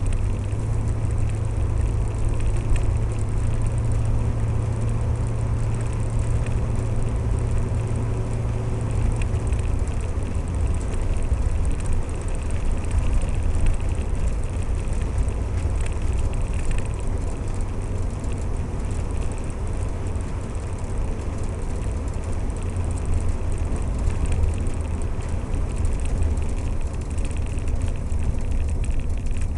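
Cabin sound of a 1960 Chrysler Saratoga V8 driving along: a steady low engine drone under road and wind noise. The engine note drops slightly about a third of the way through.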